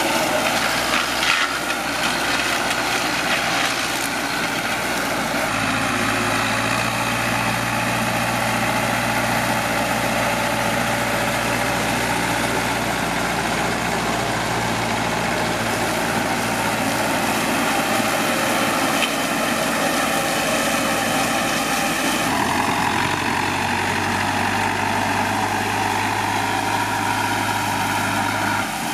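Zetor 7711 tractor's four-cylinder diesel engine running steadily under load, driving a rear-mounted grass mower. Its note shifts twice, near the start and again toward the end.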